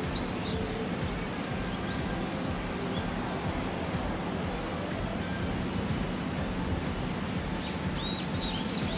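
Steady outdoor background hiss with scattered faint bird chirps, more of them near the end.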